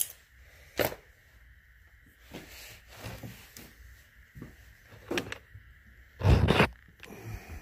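Light metallic clicks and handling noise as a newly ringed aluminum piston is turned in the hand, with a louder half-second thump and rustle about six seconds in.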